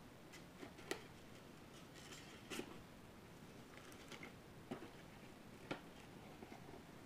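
Near silence, broken by a few faint clicks and rustles of trading cards and packs being handled.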